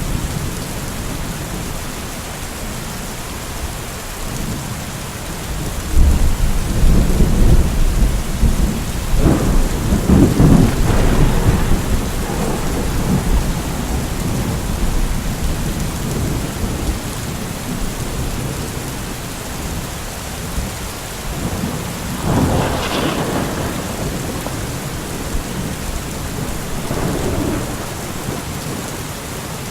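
Steady rain falling through a thunderstorm. A long, low thunder rumble sets in about six seconds in and rolls for several seconds; a sharper thunderclap comes about two-thirds of the way through, and a fainter one near the end.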